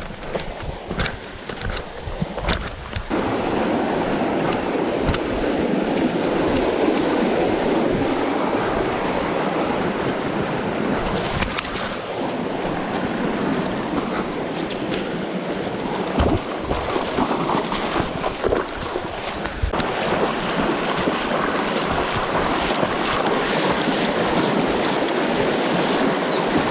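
Steady rushing of river water, coming in abruptly about three seconds in after a few scattered knocks, with occasional sharp knocks later on.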